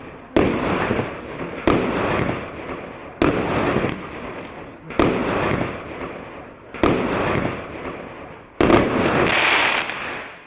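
Russian Fireworks 'Moroz Voevoda' 36-shot 1.2-inch firework cake firing: six loud bangs about one and a half to two seconds apart. Each bang is followed by a dense crackling tail, and the last has a longer, brighter crackle that fades out at the end.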